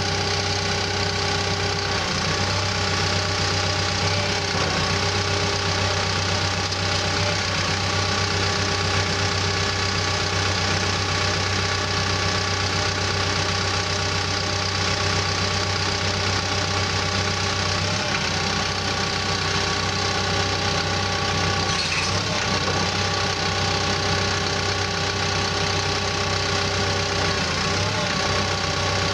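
Cat D5K2 bulldozer's diesel engine running steadily, its note dipping briefly a few times.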